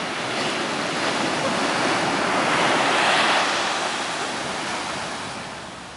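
Ocean surf breaking on a sandy shore and washing through the shallows, a steady rush that swells about halfway through and then dies away.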